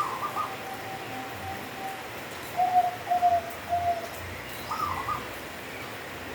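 Local zebra dove (perkutut) cooing: a short warbled opening note, a long held coo, then three short coos, and another warbled opening near the end.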